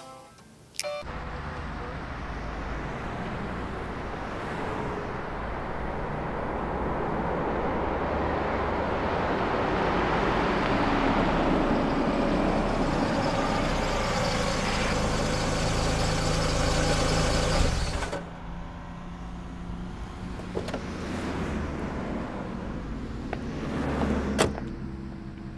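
A car engine and tyre noise growing louder for several seconds as the car comes on, then cutting off suddenly. A quieter steady low hum follows, with a single sharp click near the end.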